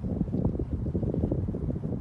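Wind buffeting the phone's microphone: a gusty, uneven rumble.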